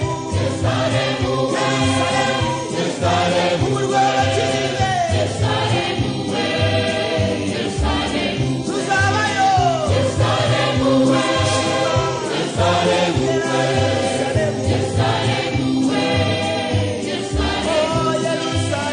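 A church choir singing a gospel song in several voice parts over a steady bass beat.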